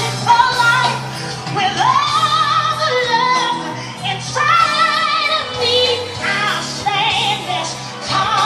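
A song with a woman singing long held notes with vibrato, sliding up into two of them, over the backing music.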